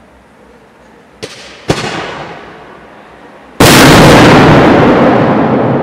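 Aerial firework shells bursting: two sharp bangs a little over a second in, half a second apart, then a much louder blast about three and a half seconds in that echoes away slowly.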